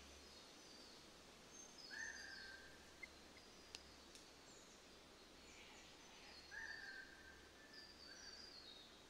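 Faint outdoor ambience with small birds chirping: short high chirps that step down in pitch, and two longer whistled notes about two and six and a half seconds in. There are two faint clicks near the middle.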